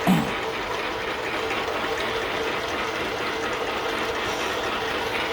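Old 1939 Sheldon metal lathe running, its gear train clattering steadily with the power cross feed engaged. A short, loud clunk comes right at the start.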